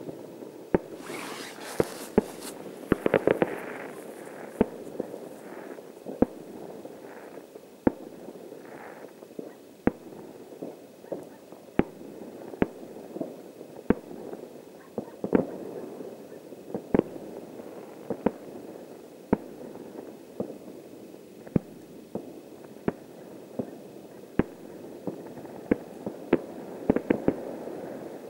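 Distant fireworks display: a string of sharp bangs from bursting shells, irregularly spaced about one every second or so, over a continuous rolling rumble, with a brief hiss near the start.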